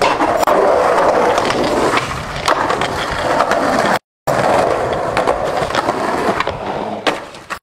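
Skateboard wheels rolling on concrete: a loud, rough, steady roll with scattered small clicks. It breaks off for a moment of silence about four seconds in, resumes, and eases off near the end with one sharper knock.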